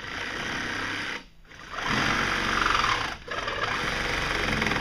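Battery-powered angle grinder cutting, running hard with two brief let-offs and a steady high whine.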